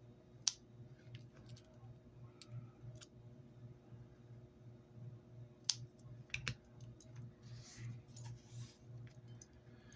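Faint, irregular clicks and snips from cutting off the loose paracord ends close to the weave and handling the cord, over a low steady hum.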